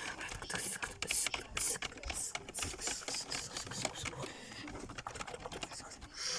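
Fast typing on a computer keyboard, a dense run of key clicks that thins out and gets a little quieter a couple of seconds before the end.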